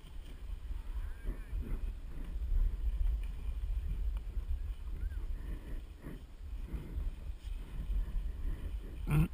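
Wind buffeting the microphone of a skier's action camera during a run down a groomed slope: a steady low rumble, with the skis scraping over packed snow. A brief louder burst comes near the end.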